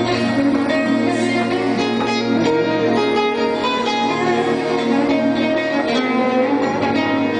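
Instrumental Arabic music: an oud plucking a melody over keyboard accompaniment, at a steady level.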